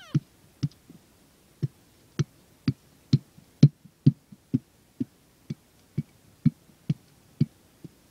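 Kick scooter hopping repeatedly on asphalt, each landing a sharp thump, about two a second.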